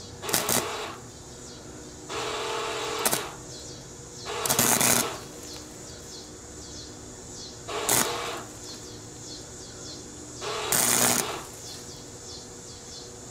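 Wire-feed (MIG) welder arc crackling in five short bursts, tack-welding a thin steel wire frame with the power set to minimum and the wire speed turned down.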